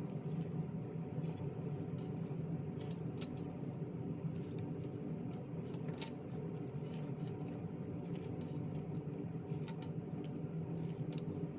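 Scattered small clicks and snips of insulation being cut and stripped from copper cable, over a steady low hum.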